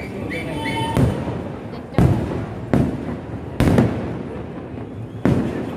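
Festival fireworks display: aerial firework shells exploding in a rapid, irregular series, about five loud bangs, each trailing off in a rumble.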